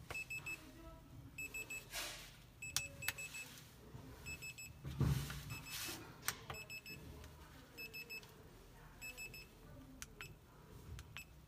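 Wrist-watch pager receiver of a wireless calling system beeping in quick bursts of about four short high beeps, again and again, as it takes incoming calls from table call buttons. Sharp clicks of the buttons being pressed come between the bursts.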